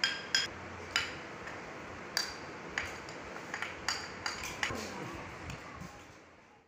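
Wooden spoon knocking against a ceramic plate to tip spices and cornflour into a glass bowl: a dozen or so sharp, ringing taps at irregular intervals, fading out near the end.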